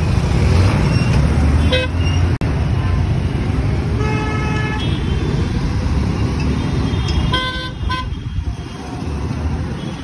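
Busy road traffic rumbling, with vehicle horns honking several times: a short honk about two seconds in, a longer one around the middle, and two quick honks near the end.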